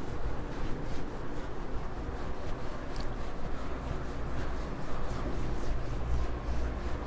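Whiteboard duster wiped back and forth across a whiteboard in repeated rubbing strokes, over a steady low hum.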